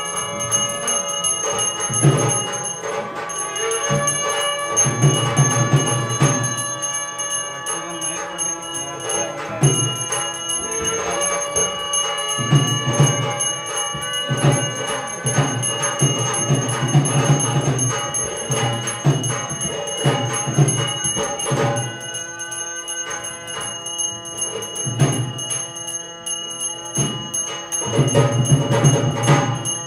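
Hindu temple bells rung continuously during a maha puja, their high ringing tones held throughout, along with music with a repeated low beat.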